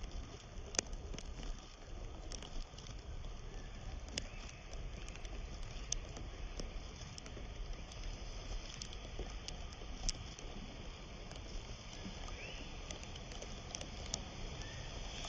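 Riverside outdoor ambience: a steady low rumble and hiss with scattered faint clicks, and a couple of brief faint chirps near the end.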